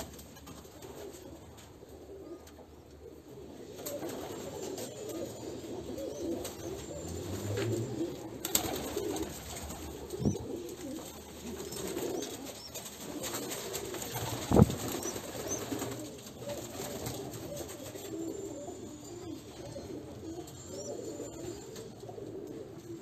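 Hünkari pigeons cooing continuously in a loft, with a few sharp knocks; the loudest knock comes about two-thirds of the way through.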